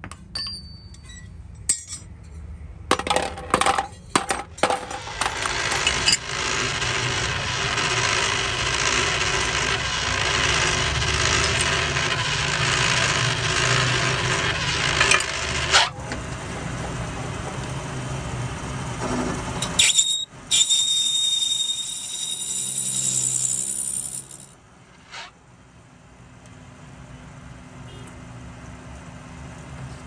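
A hammer strikes cast brass hand-pump parts on a steel block, giving scattered sharp metallic clinks. Then a metal lathe turns one of the brass parts: a steady rough cutting noise, a high whine for a few seconds later on, and the lathe running more quietly near the end.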